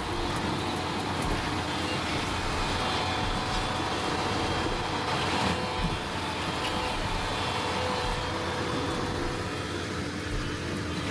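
Firewood processor's engine running steadily, a continuous machine drone with no clear separate cuts or impacts.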